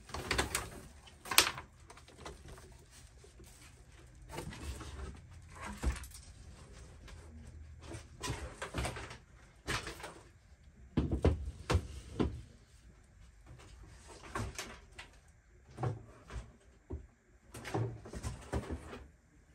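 Packaging being handled while an RC truck is unboxed: cardboard box and plastic wrap rustling and scraping, with irregular knocks. The sharpest knock comes about a second in, and there is a louder cluster of knocks near the middle.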